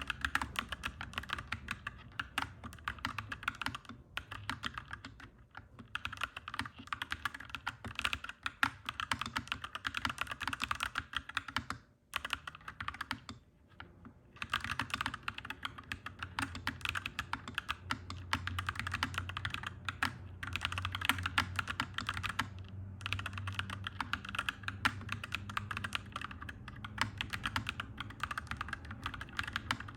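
Mechanical keyboard being typed on continuously, with fast, clacky keystrokes. The typing stops for a moment about twelve seconds in.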